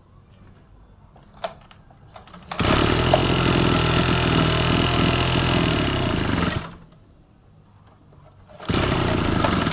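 Hot 30cc two-stroke brush-cutter engine catching and running at a steady speed for about four seconds, then stopping. It fires again near the end for just over a second and cuts out straight away.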